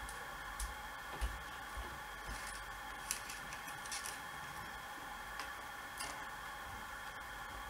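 Scattered light clicks and taps as the plastic quadcopter frame and its motor wires are handled and pushed into place, over a steady background hum and hiss.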